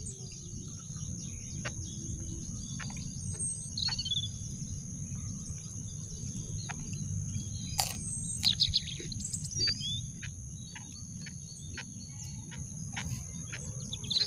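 Garden ambience: insects keep up a steady high-pitched drone while birds chirp briefly a few times. Scattered faint clicks come through, with one sharper click about eight seconds in.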